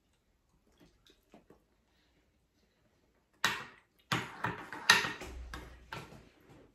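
Metal serving spoon and knife clinking and scraping against ceramic plates as food is served. A few faint ticks at first, then a run of sharp clinks and scrapes from about three and a half seconds in.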